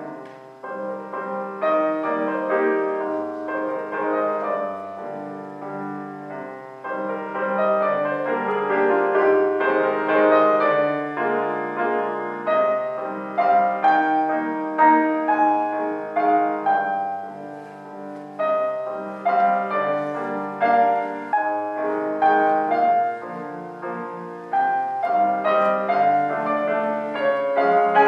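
Solo piano music: a melody over sustained low bass notes.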